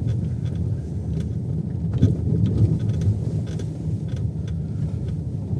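Steady low rumble of a car in motion, heard from inside the cabin: road and engine noise with faint scattered ticks.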